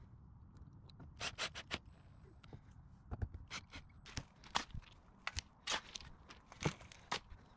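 Irregular sharp clicks and light scrapes of hands handling a plastic PVC conduit fitting cover and a screwdriver, then a shovel scraping in trench dirt and gravel near the end.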